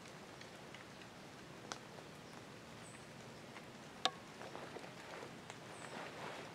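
Faint outdoor ambience in the woods: scattered small drips and ticks, one sharp click about four seconds in, then light rustling. A short, high chirp recurs about every three seconds.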